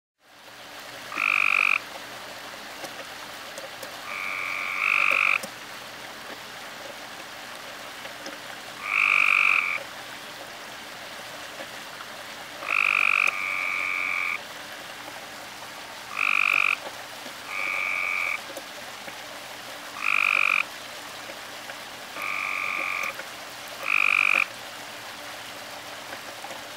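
Tree frog calling: a series of loud, short croaks, each half a second to a second long. They repeat every few seconds, some in quick pairs.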